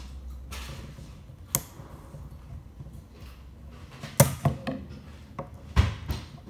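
Sharp clicks and clacks of a hair clipper blade set and its small coil spring being handled and fitted with a metal pick on a wooden tabletop. There is one click about a second and a half in, a loud cluster about four seconds in, and two more near the end.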